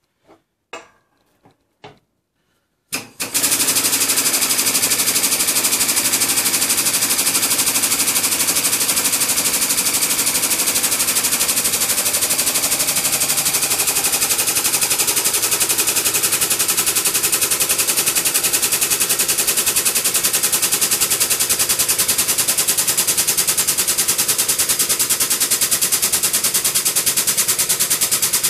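Air-over-hydraulic bottle jack on a workshop press, its air pump chattering in a fast, steady rattle as it drives the ram down to press a new bush into a radius arm. The rattle starts about three seconds in, after a few light knocks as the parts are set in place.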